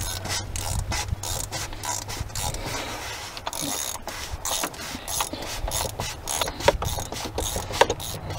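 Hand ratchet clicking in quick, uneven runs as a 36 mm socket turns the oil filter cap down onto the filter housing of a Ford 6.0 Powerstroke diesel.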